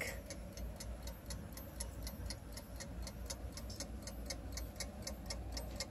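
Antique Viner London brass bracket clock with a balance escapement, ticking rapidly and evenly at several ticks a second. The freshly repaired movement is running well.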